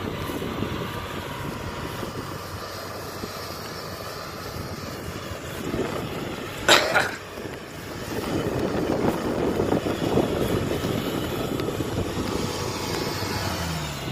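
Kubota DC60 rice combine harvester running steadily as it works the field, a drone of engine and threshing machinery. A short, loud burst of noise cuts across it about halfway through, and the machine grows louder from about eight seconds in.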